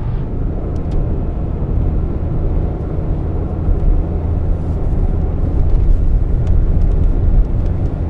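Road noise inside a moving car's cabin: a steady low rumble of tyres and engine at cruising speed, with a few faint clicks.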